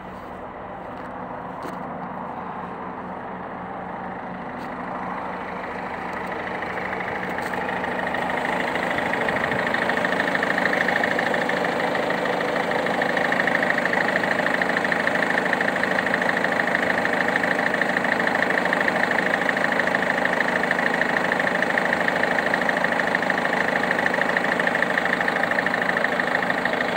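Peugeot Partner's 1.6 HDi four-cylinder turbodiesel engine idling steadily, growing louder over the first ten seconds or so and then heard close up from the open engine bay.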